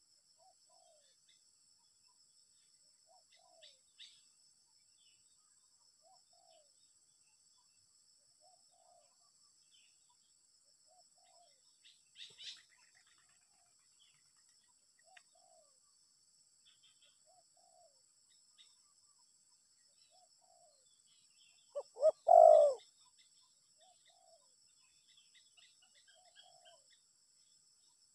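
Spotted dove (tekukur) cooing, with soft low coo notes repeating about every second and a half and one loud, deeper coo about 22 seconds in. The bird is kept for its deep 'gembur' voice type. Small birds chirp faintly in between.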